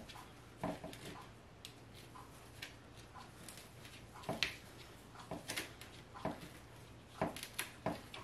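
Gloved fingertips pressing and tapping the salt topping down on bath bombs packed into small cauldron pots: faint, irregular taps and light clicks about once a second, a few close together near the end.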